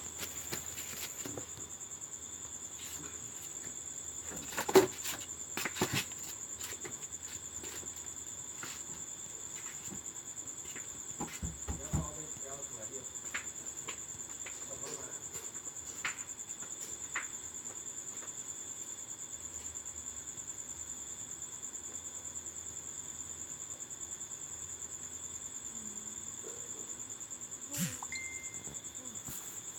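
Insects chirring in one continuous, steady high-pitched drone, with a few scattered clicks and knocks, the loudest about five seconds in.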